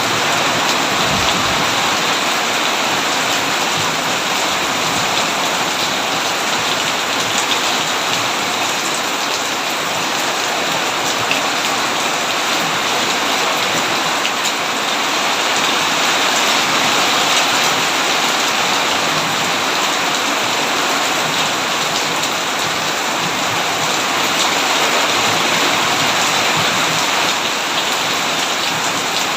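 Steady, heavy rain falling: a dense, even hiss of raindrops hitting the ground and foliage.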